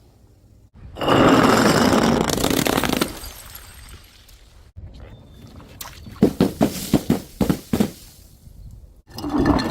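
A dropped container bursts about a second in, with about two seconds of splashing liquid. Later comes a run of about eight sharp knocks and clinks, like a glass bottle striking hard steps, and a new impact starts near the end.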